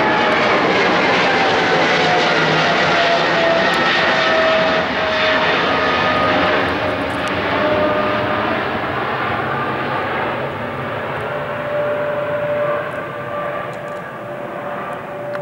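Boeing 777-200's twin GE90 jet engines at takeoff-climb power, a loud roar with whining tones that slide down in pitch over the first few seconds and then hold steady, slowly fading as the jet climbs away.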